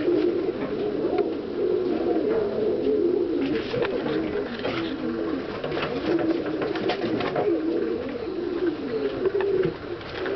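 Domestic pigeons cooing continuously, several overlapping warbling coos at once, with scattered light clicks over them.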